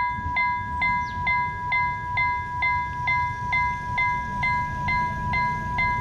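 Railway level-crossing warning bell ringing, about two strokes a second, each stroke ringing on into the next.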